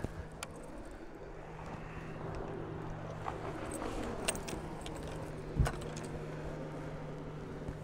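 Fishing reel being cranked against a hooked muskie: light clicks and rattles over a steady low hum, with one knock about five and a half seconds in.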